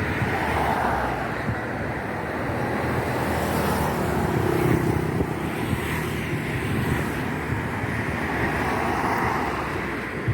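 Steady road traffic noise, vehicles passing close by.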